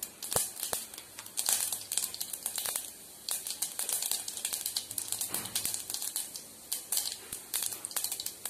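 Mustard and cumin seeds crackling and popping in hot oil in a pressure cooker, a quick run of sharp pops over a steady sizzle: spices spluttering as they are tempered.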